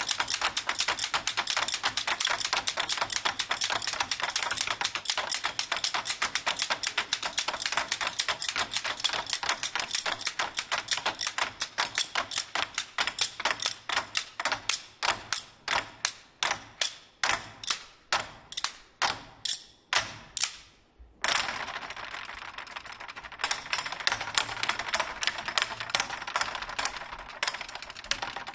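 Drumsticks clicking in a fast, dense patter of sharp wooden clicks with no drum boom. The clicks slow to single, widely spaced strikes and stop about 21 seconds in. A short rush of noise follows, then the fast clicking starts again.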